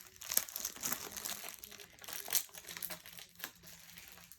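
A large rolled diamond painting canvas being unrolled and handled, crinkling and crackling irregularly, with a few louder snaps.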